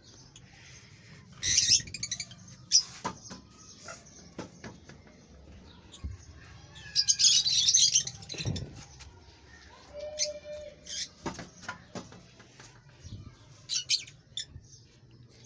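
Pet parrots calling in short, shrill bursts of chirps, about four times, the loudest about seven seconds in, with scattered light clicks between calls.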